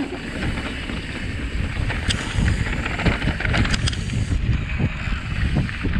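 Wind buffeting the camera microphone over the rumble of an electric mountain bike's tyres on a dirt trail, with a few sharp clicks and rattles from the bike over bumps about two to four seconds in.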